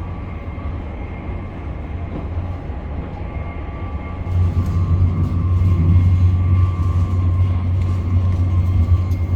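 Running noise of an Intercity Express train heard from inside the carriage: a steady low rumble with a faint whine. About four seconds in it grows louder, with added rattling.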